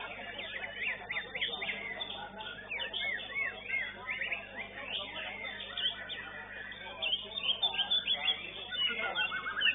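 Caged white-rumped shamas (murai batu) singing: a dense, unbroken tangle of quick whistles and chirps, several birds overlapping.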